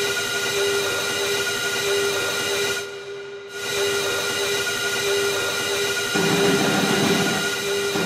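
Ice hockey arena goal horn of Leksands IF sounding a long, steady blast of several held tones. It dips briefly about three seconds in, and more sound joins lower down about six seconds in.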